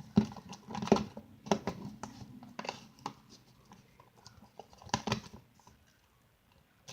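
Slime being stirred by hand in a container just after activator was added: irregular sticky clicks and scrapes, several in the first three seconds and another cluster about five seconds in.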